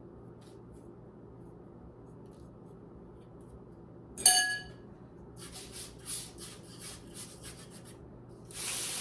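A single ringing clink of a utensil against a bowl or pan about four seconds in, then irregular scraping and rustling as buttered graham cracker crumbs are tipped and scraped into a cake pan, with a louder scrape near the end.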